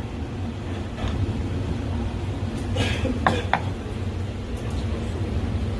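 A few sharp knocks and a short scrape of a kitchen knife working chicken on a plastic cutting board, clustered about three seconds in, over a steady low hum.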